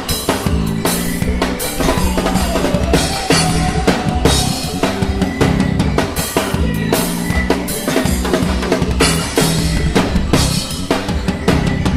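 Band playing instrumental music with the drum kit to the fore: a busy bass-drum and snare beat over a bass line that steps between notes.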